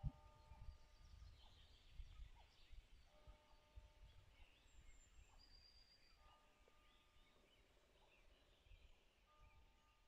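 Near silence: faint distant bird calls, one a call of steady notes repeating about every three seconds, over a low rumble on the microphone, with a soft knock at the very start.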